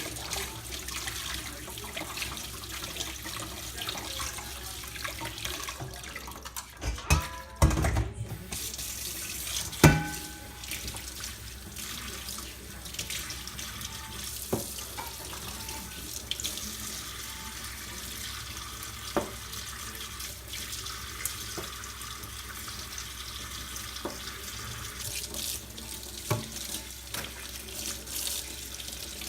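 Water running steadily from a tap into a sink, with a few knocks and clatters: a cluster about seven seconds in, the loudest about ten seconds in, and a handful of smaller clicks later.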